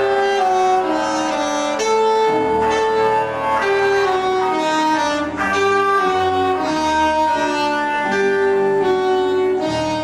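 Live instrumental band playing: a saxophone melody over keyboards, a dense run of held notes that change pitch every half second or so.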